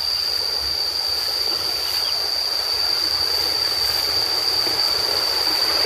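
Field insects making one steady, high-pitched drone that holds unbroken over a constant rushing hiss.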